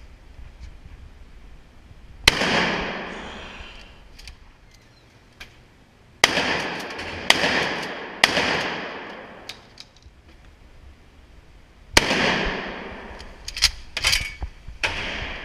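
Gunshots echoing in an indoor shooting range: five loud shots, each with a long reverberant tail, three of them about a second apart in the middle, then a quick cluster of sharper cracks near the end.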